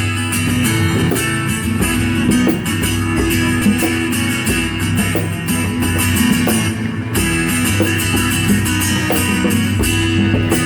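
Instrumental song intro without vocals: strummed guitars over a bass line.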